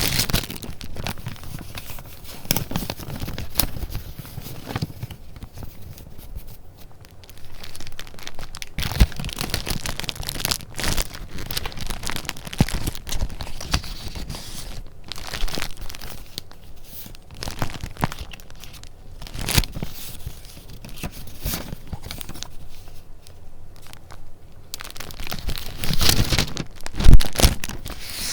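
Sheets of paper and paper goods being handled, with rustling and crinkling and scattered small clicks and taps. A louder burst of crinkling comes near the end.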